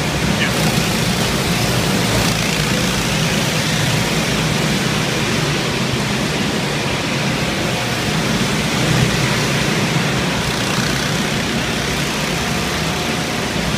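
Several go-karts running laps around an indoor track, their engines making a steady, continuous noise that carries evenly through the whole stretch.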